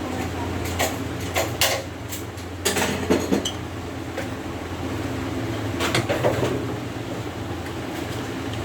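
Scattered metal clinks and knocks from parts of a top sealer packaging machine being handled during a rubber replacement: a few single knocks in the first two seconds, a quick cluster around three seconds in, and another around six seconds in. A steady low hum runs underneath.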